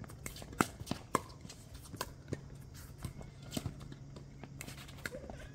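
Pickleball rally: paddles striking the hard plastic ball in sharp pops, about a dozen at irregular spacing, with fainter taps between them.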